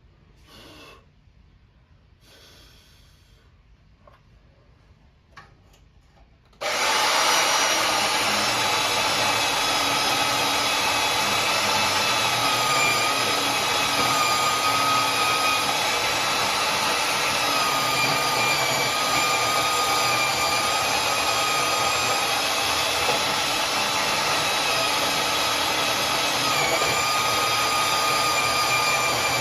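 Faint light sounds, then about seven seconds in a power tool starts suddenly and runs steadily with a high whine.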